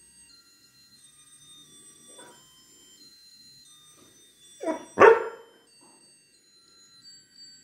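A young dog barks twice in quick succession about four and a half seconds in, the second bark the louder. Faint, thin, high-pitched tones sound underneath.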